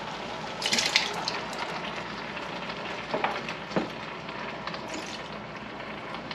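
Ground venison and tomatoes sizzling in a stainless steel stockpot on medium-high heat, a steady frying hiss that flares up briefly about a second in. A few light knocks come around three to four seconds in as containers touch the pot.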